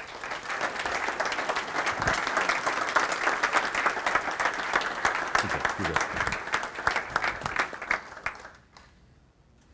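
An audience of men applauding, many hands clapping together, the applause thinning and dying away about eight and a half seconds in.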